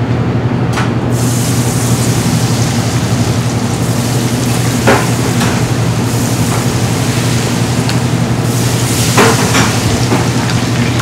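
Battered tempura going into a commercial deep fryer, the hot oil sizzling and bubbling loudly; the sizzle jumps up about a second in as the batter hits the oil. A steady low hum runs underneath, and a few light clinks come around the middle and near the end.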